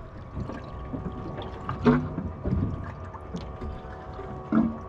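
Water lapping against a boat hull with a faint steady hum underneath, broken by two brief louder sounds, about two seconds in and again near the end.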